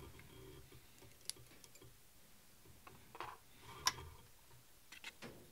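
Faint, scattered clicks and ticks of hands working at a fly-tying vise, winding thread over a mylar tinsel tag on a Waddington shank; the sharpest click comes about four seconds in.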